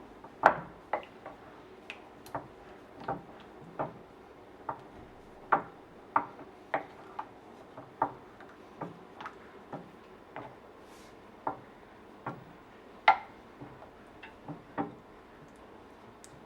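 A stirring utensil tapping and clicking against the side of a microwave-safe bowl as thick melted chocolate is mixed: irregular sharp taps, roughly one or two a second, the loudest about half a second in and near the end.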